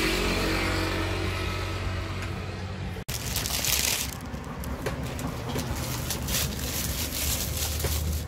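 A motor vehicle engine running with a steady hum, cut off abruptly about three seconds in. Then a brief hiss, followed by scattered light knocks and scrapes.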